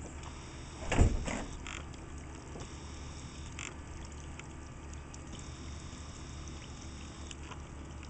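Small backyard rock waterfall trickling steadily over stones, with one brief muffled thump about a second in.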